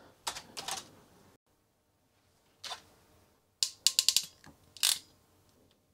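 Hand crimping tool clicking as its handles are squeezed shut on a crimp pin for a wire connector: a few clicks, then a quick run of about five, then one more. A faint steady hum lies underneath.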